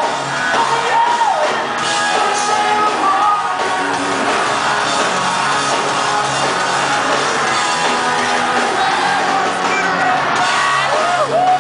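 Rock band playing live, loud and continuous, with sung vocals and gliding pitched lines from voice or guitar over the full band, heard with the spread of a large hall.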